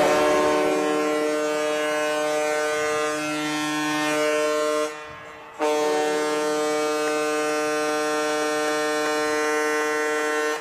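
Soo Eagles' hockey goal horn blowing in two long, steady blasts of about five seconds each, with a brief break between them.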